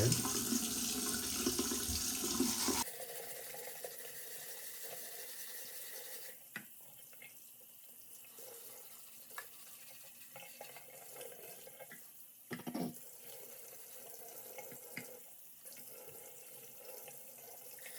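Water running from a tap into a sink, stopping abruptly about three seconds in. After that it is quiet, with a few light knocks and clicks from handling the shower head.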